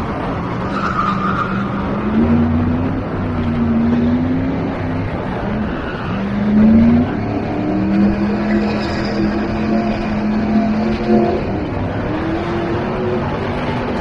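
Ford 5.0 fuel-injected V8 in an Isuzu Pup drift truck revving up and down through a drift run, its pitch climbing several times and holding high for a couple of seconds, with tyres skidding on the asphalt.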